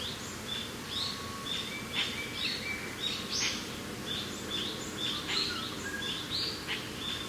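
Several birds chirping and singing in quick short notes and rising whistles, overlapping one another, over a steady low rush of mountain wind.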